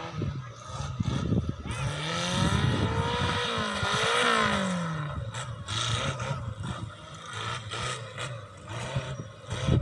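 Off-road vehicle's engine revving, its pitch rising to a peak about four seconds in and then falling away as it drives past, with rougher engine noise and scattered knocks around it.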